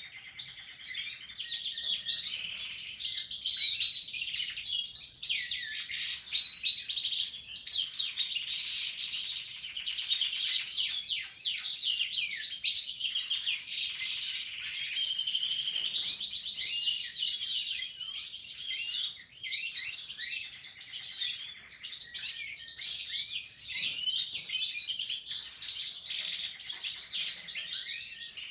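Caged European goldfinches (Siberian and parva forms) and a Raza Española canary singing together: a dense, unbroken medley of fast twitters, trills and chirps, dipping briefly about two-thirds of the way through.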